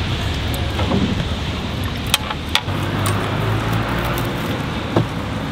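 Steady outdoor rumble and hiss, with a few light clicks and knocks about two seconds in and near the end as a rope and hanging rubber fender are handled against a narrowboat's steel side.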